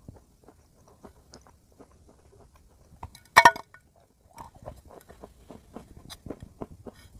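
Dry, crumbly clay block being bitten and chewed: a run of small crunching crackles, with one loud crunching bite about three and a half seconds in.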